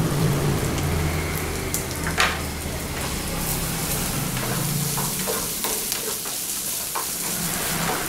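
Diced smoked beef, onion and carrot sizzling in margarine in a nonstick frying pan, with a spatula scraping and clicking against the pan as the mix is stirred. There is one sharper knock about two seconds in, and a low hum underneath fades out about five seconds in.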